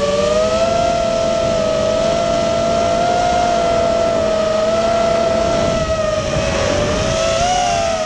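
FPV racing quadcopter's electric motors and propellers whining steadily, with the pitch wavering as the throttle changes. About six seconds in the whine splits into several tones that rise and fall against each other as the motors run at different speeds through a turn.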